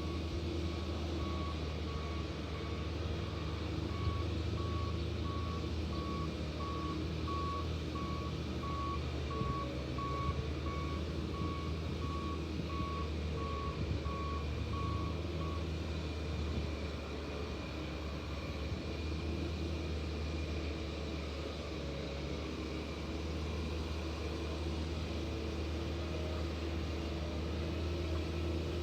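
Heavy diesel construction equipment running with a steady low drone, while a backup alarm beeps about once a second and stops about halfway through.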